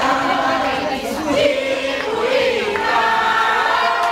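A group of people singing a song together, several voices holding long notes that glide from one pitch to the next.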